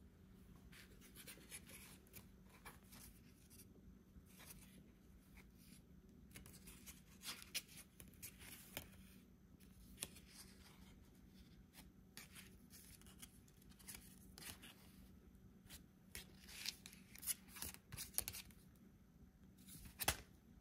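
Faint, irregular scraping and rustling handling sounds in a small room, over a low steady hum.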